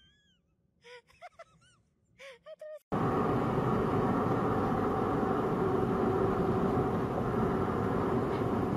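A few faint short chirps. Then, about three seconds in, a loud steady rush of vehicle and road noise starts abruptly.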